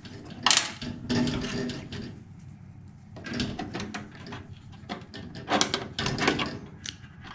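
Scattered clicks and light knocks of screws and small parts being handled as screws are fitted back into a fireplace control board.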